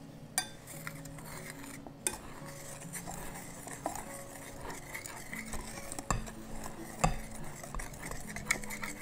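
Wire whisk stirring a dry flour and spice mix in a bowl, with a steady scraping and now and then a sharp click of the wires against the bowl's side.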